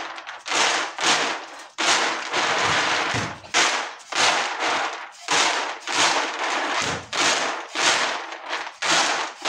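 Dry shelled maize kernels tossed and caught in a flat woven winnowing basket, a rhythmic rattling swish about twice a second as the chaff is winnowed out.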